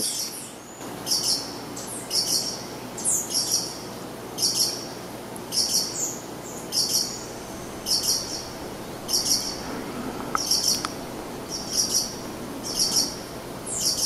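Green violetear hummingbird (Colibri thalassinus) singing: a short, high, chipping phrase repeated monotonously about once a second.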